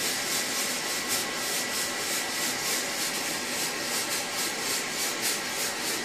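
Kam KHM800 haze machine running: a steady hiss that pulses about three times a second, with a faint steady high whistle under it.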